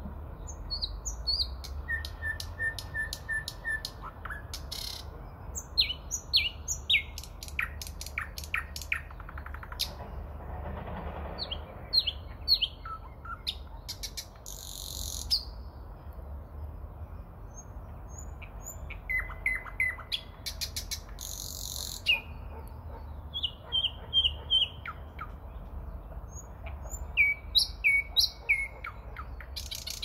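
Thrush nightingale singing, phrase after phrase with short pauses between: runs of repeated whistled notes, bursts of rapid loud clicks, and short harsh rattles.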